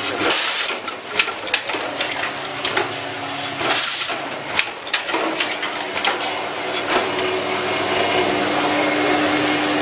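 Automatic keyboard-switch assembly and test machine running: irregular mechanical clicks and clatter over a steady whirring noise, joined by a steady hum about seven seconds in.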